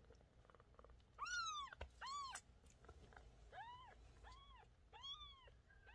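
Kitten meowing: a series of about six short, high-pitched mews, each rising and falling in pitch, about one a second, the first two the loudest.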